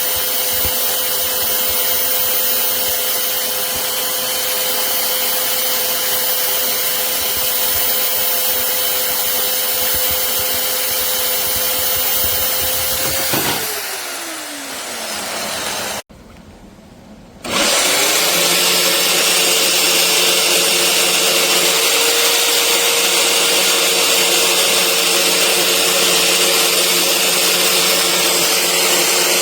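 VEVOR portable corded band saw running with a steady motor whine. About halfway through it is switched off and winds down with a falling pitch. After a short near-silent pause it starts again, rising back up to speed, and runs steadily.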